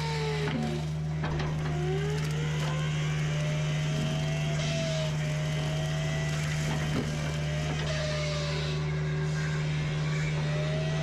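Forestry mulcher running under load: a steady engine drone with a whine that slowly rises and falls as the rotor bites. There are a few sharp knocks of wood being hit, near the start and again about seven seconds in.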